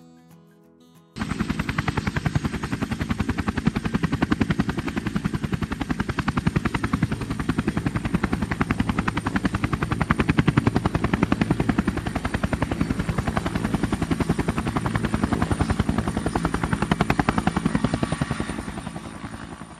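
Camera drone's propellers and motors running: a loud steady buzz made of rapid, even pulses with a high whine above it. It starts abruptly about a second in and fades near the end.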